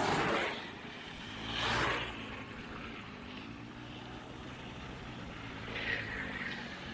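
Motor vehicle engine and road noise, swelling twice early on as vehicles pass, with an engine's pitch shifting.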